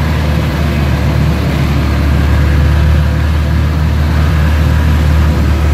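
Microbus engine running steadily under way, a loud low drone with road noise, heard from inside the vehicle.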